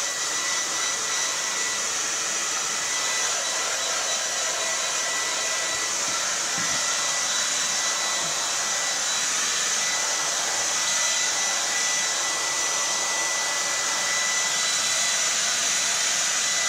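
Handheld hair dryer running steadily, a rush of air with a steady high whine, blowing on a wet cat's fur to dry it after a bath.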